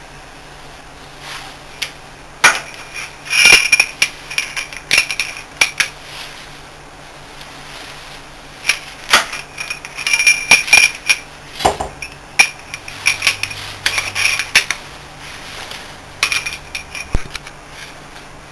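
Spanner and steel bolts on a Bitzer V4 semi-hermetic compressor's motor end cover clinking as the bolts are worked loose and backed out, in irregular clusters of sharp metallic clicks with a brief ring.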